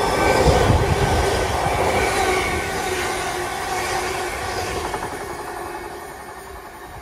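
Greater Anglia Class 720 Aventra electric multiple unit passing through the platform at speed, wheels rumbling and clattering on the rails. Loudest about half a second in, then fading as it runs away.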